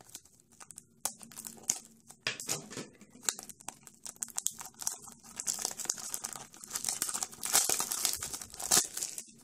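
Clear plastic wrap on a small toy package crinkling and tearing as it is worked open and peeled off by hand, in irregular crackles that grow busier and louder in the second half.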